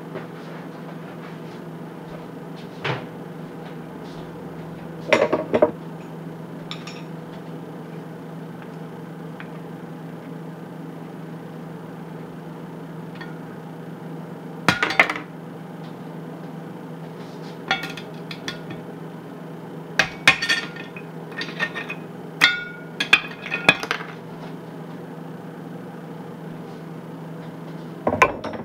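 A metal tool clinking and scraping against a cast iron Dutch oven as it prises off the hardened, baked flour-and-water dough seal round the lid. Scattered taps and knocks come in small clusters, busiest about two-thirds of the way through, over a steady low hum.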